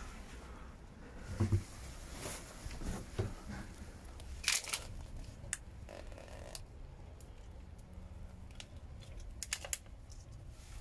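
Handling noise: a few scattered light clicks and short rustles, the strongest about a second and a half in, about four and a half seconds in, and near the end, over a low steady hum.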